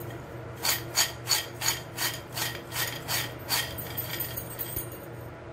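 Crispy fried macaroni rattling against the sides of a bowl as the bowl is shaken to toss it with chaat masala, in rhythmic strokes about three a second that stop about three and a half seconds in.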